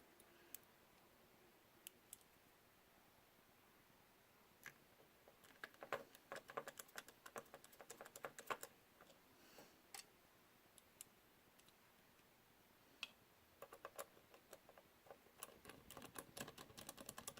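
Faint, scattered small clicks and taps of small parts being handled on a drone camera gimbal while a ribbon cable is worked into its connector. They come in irregular flurries, busiest about six to nine seconds in and again near the end.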